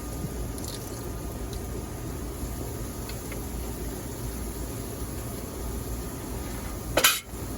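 Ketchup being squeezed from a bottle into a pot of stewing chicken over a steady low background hum, with a few faint ticks and one short, loud noisy burst near the end.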